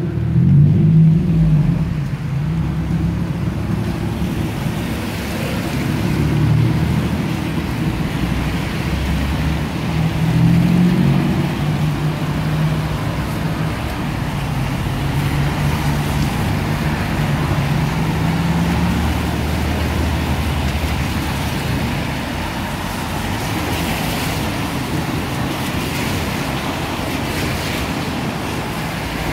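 Road traffic on a rain-soaked road: car engines running and tyres hissing over wet tarmac, swelling as vehicles pass about a second in and again around ten seconds in.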